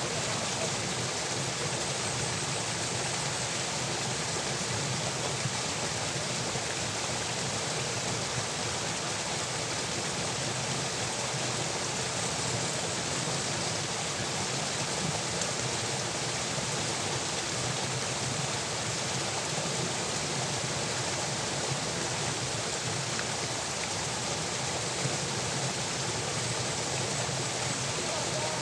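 Irrigation channel water flowing, a steady, even rush with no change.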